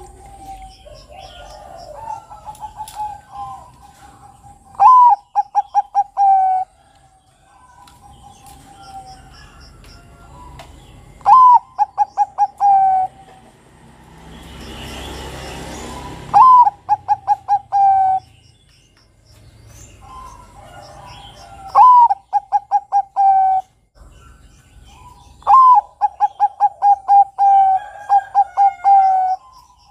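Bangkok-type zebra dove (perkutut) singing its cooing song five times: each phrase opens with a high rising note, runs into a quick series of short staccato coos and ends on a held note. Other small birds chirp faintly in the background, and a brief rush of noise comes about halfway through.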